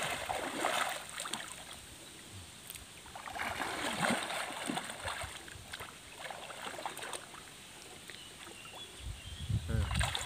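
Pond water sloshing and splashing in uneven patches as a gill net is lifted up out of the water.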